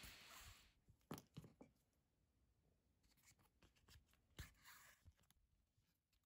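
Near silence, with a few faint ticks and rustles from hand-stitching leather: a needle and thread drawn through pre-punched holes. There are three quick ticks about a second in and one more near the middle.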